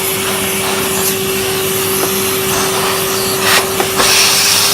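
A Numatic Hetty cylinder vacuum cleaner running steadily with a constant whine, sucking dust out of an old upright vacuum's insides. A few light knocks of the nozzle come near the end.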